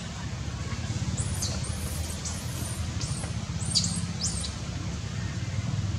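Newborn macaque squeaking: a string of short, high-pitched calls that fall in pitch, several close together in the middle, over a steady low rumble.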